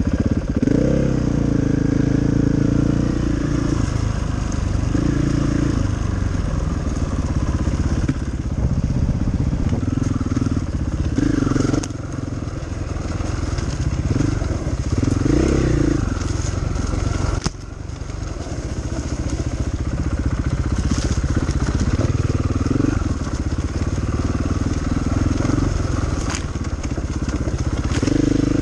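KTM enduro motorcycle engine revving up and down as it is ridden along a rough dirt trail, its pitch rising and falling with the throttle. It drops off briefly about two-thirds through before picking up again.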